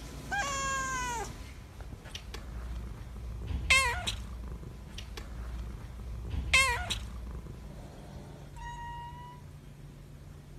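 Calico cat meowing: a longer meow that falls in pitch near the start, two short, sharp meows about four and six and a half seconds in, and a softer, level-pitched call near the end.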